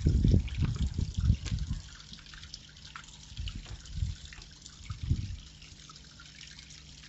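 Wind buffeting the microphone in heavy gusts, strongest in the first two seconds, over diced bacon crackling in hot oil and butter in a frying pan.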